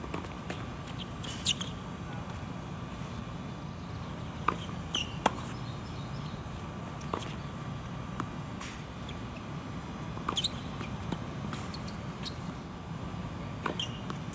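Tennis balls being struck by racquets and bouncing on the court, a series of sharp knocks a second or two apart, the loudest about five seconds in. Short high squeaks of tennis shoes on the court come between them.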